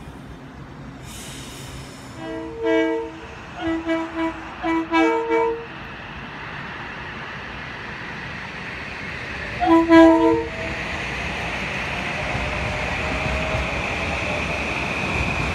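Train air horn sounding several chord-like blasts: one, then a quick string of short toots, then another about ten seconds in. Under the horn, the rumble of an approaching train grows steadily louder.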